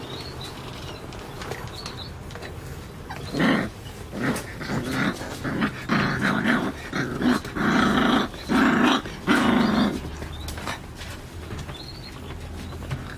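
Puppy growling in a run of about a dozen short growls that start a few seconds in and stop about ten seconds in, the last ones the loudest. Light rattling of a wire crate can be heard before and after.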